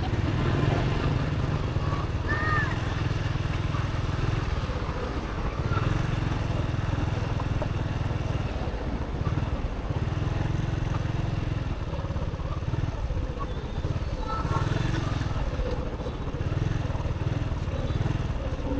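A motorbike running along a road, heard from on board: steady engine and road noise under a deep rumble that swells and fades every few seconds.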